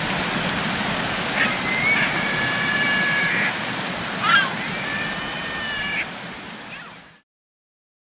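A steady wash of water and wind noise with two drawn-out bird calls. Each call is a short sharp note followed by a held, even note lasting a second or more. The sound fades out near the end.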